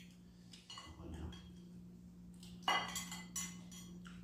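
Metal spoons clinking and scraping against ceramic bowls during eating, in a string of short clinks, the loudest about two and a half seconds in. A steady low hum runs underneath.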